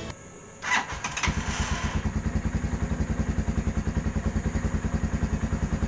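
Z200X motorcycle cold-started: the starter turns briefly under a second in, then the engine catches and settles into a steady, even idle. Its exhaust is a stock muffler repacked with denser fiber around a straight perforated tube, with the silencer insert fitted.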